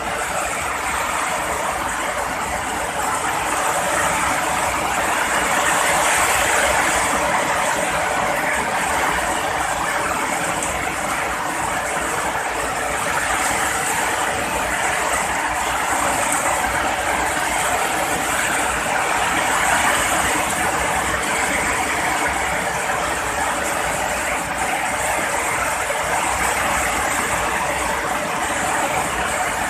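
Heavy rain falling steadily: a dense, even hiss with no thunder clap.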